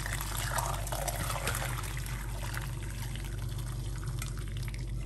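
Hot sorghum-leaf drink poured in a steady stream from a pot through a stainless-steel mesh strainer into a glass measuring jug, splashing and trickling, easing off near the end.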